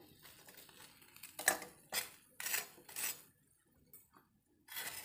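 A metal spatula scraping and knocking against a frying pan as fried bread slices are moved about in hot oil, about five short strokes with quieter gaps between.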